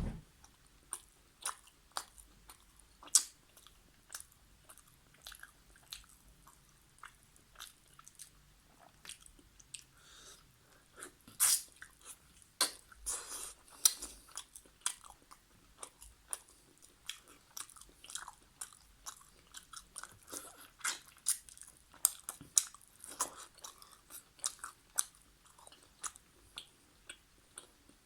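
Close-miked chewing of chicken karahi and naan: an irregular stream of sharp mouth clicks, several a second, with a few louder ones now and then.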